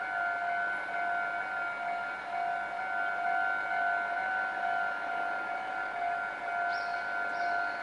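A steady high electronic ringing tone that keeps going without rising or falling, with two short high chirps near the end.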